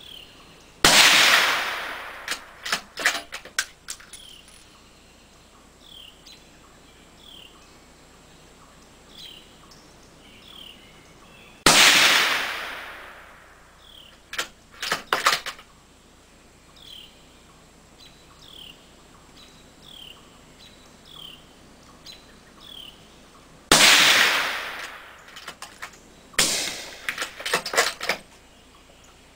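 Three suppressed rifle shots, about eleven seconds apart, each with a long fading echo and followed by a quick run of clicks. Birds chirp between the shots.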